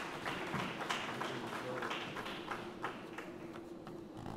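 Scattered audience clapping, thinning out over the last second or so, over a steady low hum.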